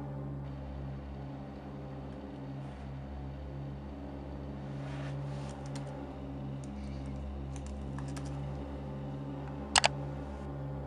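Computer keyboard being typed on in short runs of key clicks, with one louder, sharp click near the end, over a low steady droning hum.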